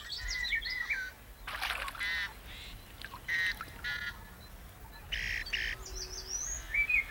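Birds calling around a weedy pond: several short harsh calls spaced a second or so apart, with thin warbling whistles near the start and end.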